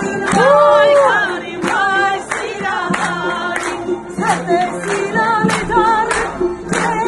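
A woman sings a song with strong vibrato over music, and the crowd claps along in a steady beat, a little under two claps a second.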